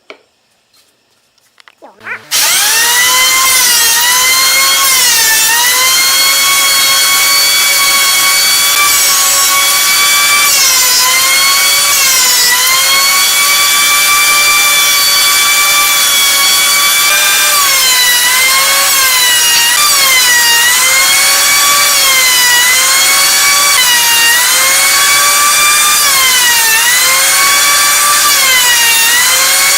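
Small high-speed electric power-tool motor that starts suddenly about two seconds in and runs with a loud, steady whine. Its pitch dips and recovers again and again as the cut loads it, and it cuts off abruptly at the end.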